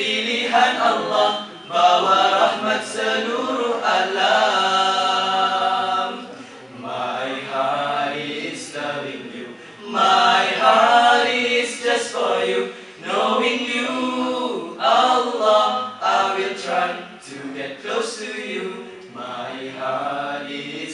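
A small group of male voices singing a nasheed a cappella, in phrases with short breaks between them.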